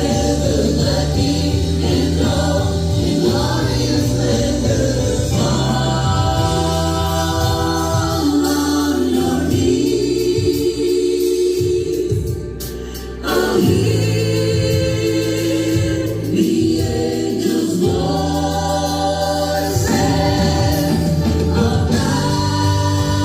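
Gospel-style Christian music: a choir singing over instrumental backing, with a short lull about twelve seconds in.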